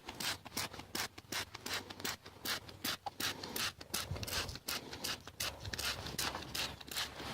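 Scrub brush scrubbing the tread of a used Goodyear Tracker HP ATV tire in quick, even back-and-forth strokes, about four a second.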